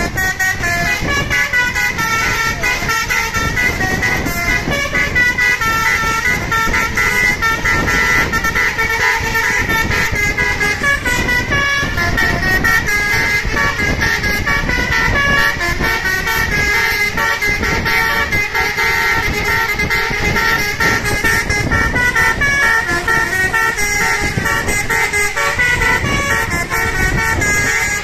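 A bus's Basuri telolet horn playing a fast, unbroken melody of short musical toots, the notes stepping up and down in pitch.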